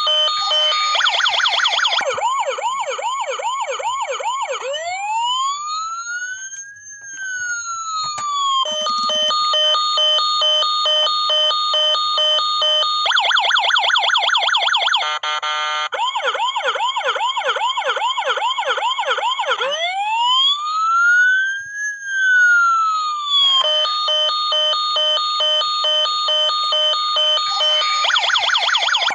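Toy fire truck's electronic siren cycling through its patterns: a steady pulsed beeping, a fast warbling yelp, then a slow wail that rises and falls. The cycle runs through about twice, with a brief burst of rapid chirps about halfway.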